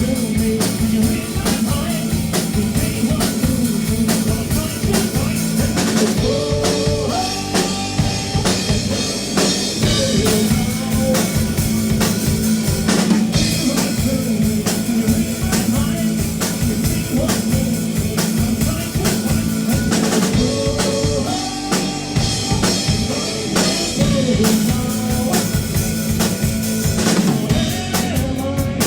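Live rock band playing an instrumental passage, the drum kit driving a steady beat over bass and guitar.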